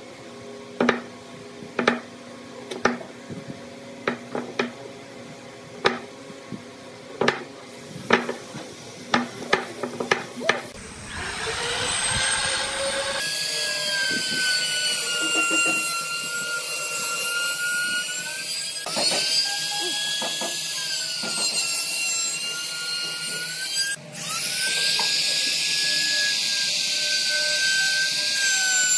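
Strokes of a small hand saw cutting pine, about one a second and quickening later on. After about ten seconds an electric trim router takes over: it runs with a steady high whine that sags briefly now and then as the bit cuts into the wood.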